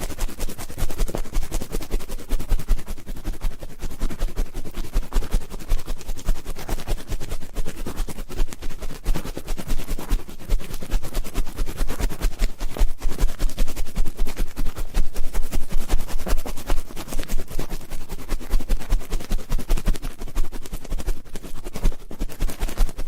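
Ear-cleaning ASMR: an ear pick scratching and scraping close on the microphone, a dense, fast crackle of clicks and rubs.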